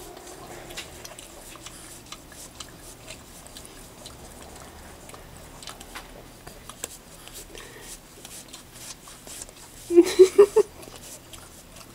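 Boston terrier licking yogurt from the inside of a plastic cup: soft wet lapping and small clicks of tongue and mouth against the cup. About ten seconds in, a brief louder burst of several quick pulses.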